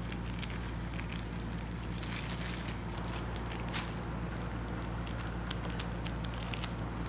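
Thin plastic courier mailer crinkling and crackling in irregular bursts as it is handled and worked open with dull scissors, over a steady low hum.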